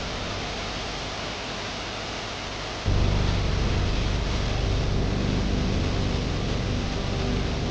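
Waterfall rushing steadily. About three seconds in, the sound turns suddenly louder and deeper, with a heavy low rumble that stays to the end.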